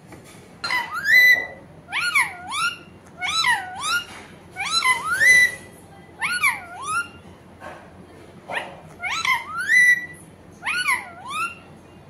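Pet parakeet calling: loud, short calls that swoop sharply up and down in pitch, coming in clusters of two or three about every second, with a short gap around the middle.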